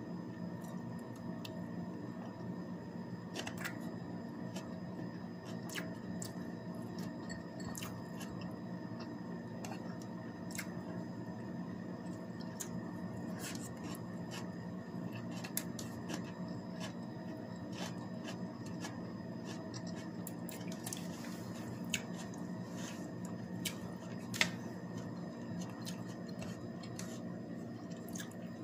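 A person eating with her fingers from a plate: scattered small clicks and taps, with two sharper clicks late on, over a steady low hum in the room.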